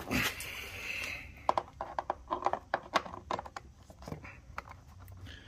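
Plastic chainsaw cover handled against a chainsaw's plastic housing: a short scrape or rustle at first, then a run of light clicks and taps as the parts knock together.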